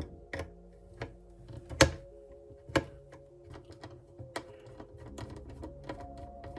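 Sharp clicks and taps from small computer parts being handled while an SSD is fitted: a few distinct clicks, the loudest about two seconds in, then quicker, lighter ticks. Soft background music plays under them.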